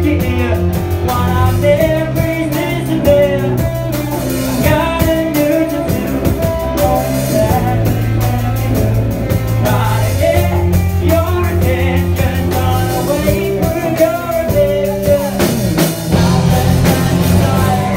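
Live rock band playing: a sung vocal line over electric guitars, bass and a drum kit, with sustained low bass notes that change every few seconds.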